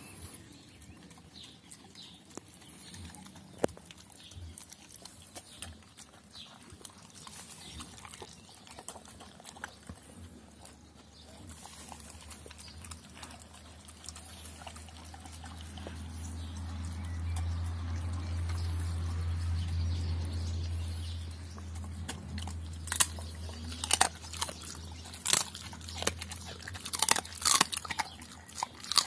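Doberman pinscher eating a soft rice-and-meat mash from a stainless steel bowl: wet mouthing and small ticks at first, then loud sharp chomps and crunches of chewing over the last several seconds. A low steady rumble swells and fades in the middle.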